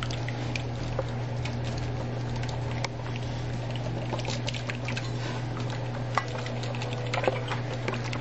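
A utensil stirring a wet mayonnaise, lemon juice and vinegar mixture in a bowl, with frequent light clicks of the utensil against the bowl, over a steady low hum.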